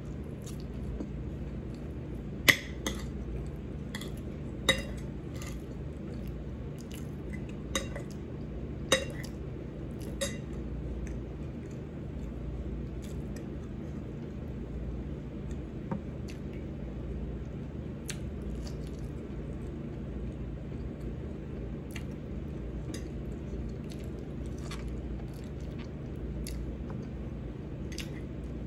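A metal spoon clinking and scraping against dishware during a meal: a dozen or so sharp separate clinks, the loudest and most frequent in the first ten seconds, then sparser. A steady low hum runs underneath.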